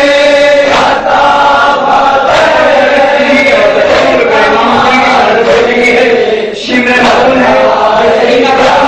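Male voices chanting a nauha, a Shia lament, in long held notes: a lead reciter on a microphone with a group of men chanting along.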